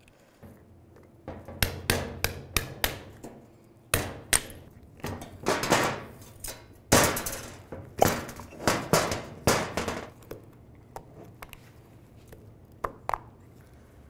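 Metal clicks and clanks of a pry tool working a boot clamp off a CV axle, with the tool and axle knocking on the workbench. The sharp knocks come irregularly from about a second in to about ten seconds, then only a couple of light clicks near the end.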